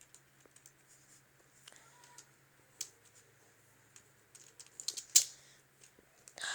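Scattered small plastic clicks and taps from a Lego rubber-band rifle being handled and loaded, busiest and sharpest about five seconds in.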